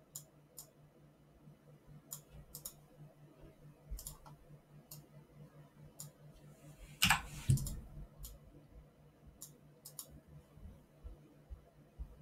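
Computer mouse clicking: scattered single clicks, with a brief louder noise about seven seconds in and a faint steady low hum underneath.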